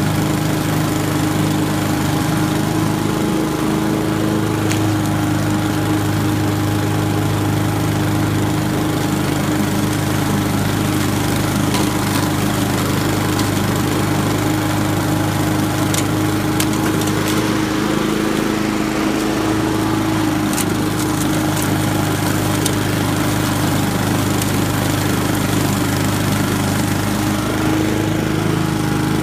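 Honda walk-behind lawn mower's single-cylinder four-stroke engine running steadily under load as the mower cuts grass.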